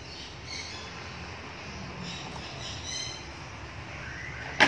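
A plastic toy car knocking once, sharply, on a tile floor near the end, after a quiet stretch with a few faint high chirps.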